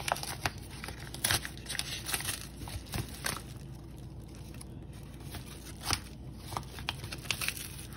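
A yellow padded paper mailer being torn open by hand: irregular tearing and crinkling of paper, with many short crackles.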